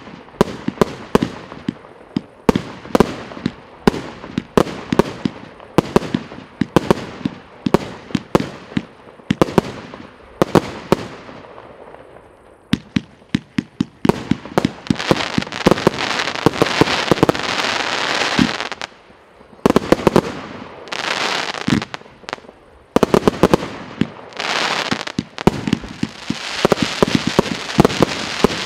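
A 164-shot firework cake firing: a rapid run of sharp bangs, about two to three a second, then a dense, continuous crackling with more bangs mixed in, dropping out briefly twice.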